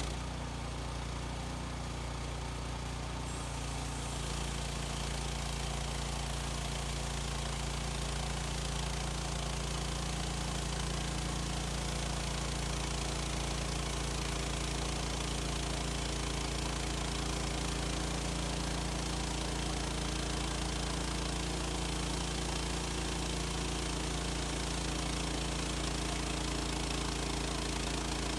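Gas engine of a Woodland Mills HM130 Max portable bandsaw mill running steadily, with a hissier noise thickening about three to four seconds in.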